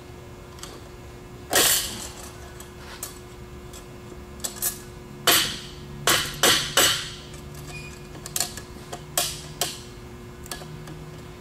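Sharp metallic clicks and knocks, irregular, with a cluster of loud ones in the middle, as steel clutch parts and a hand tool are worked into a 5HP24 automatic transmission's clutch drum.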